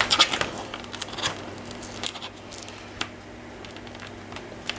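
Scattered light clicks and crackles of tape being slowly peeled off a Chromebook's plastic casing, with a few sharper ticks near the start.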